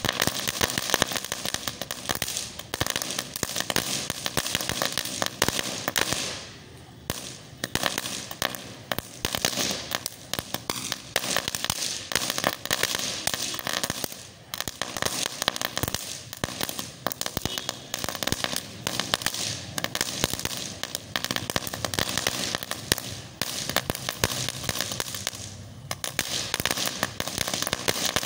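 Standard Fireworks ground firework burning on the ground: a dense, continuous crackle of rapid sharp pops, easing briefly about six and a half seconds in, again near the middle and again near the end.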